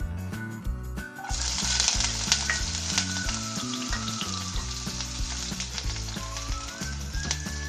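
Chopped shallots dropped into hot coconut oil in a pan, setting off a sudden loud sizzle about a second in that keeps going steadily as they fry.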